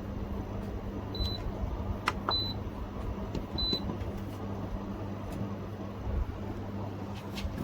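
A Meaco Arete One dehumidifier giving three short, high electronic beeps about a second apart as its control buttons are pressed, with light clicks between them, over the steady low hum of the running unit.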